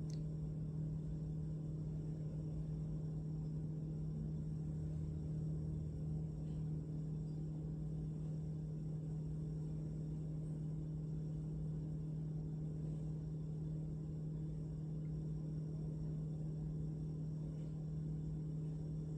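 A steady low hum with a few fainter tones above it, unchanging throughout: background room tone.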